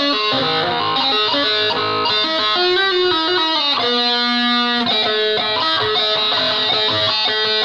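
Electric guitar played through distortion: a run of single notes stepping down in pitch, then one note held for about a second near the middle before the playing picks up again.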